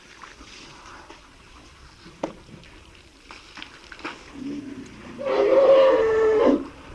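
African elephant trumpeting: a lower call that jumps, about five seconds in, into a loud held pitched tone lasting about a second and a half, which stops sharply.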